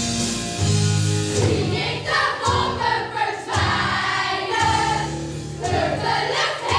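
A stage ensemble of young performers singing together over an instrumental backing; the massed voices come in about two seconds in, above steady bass notes.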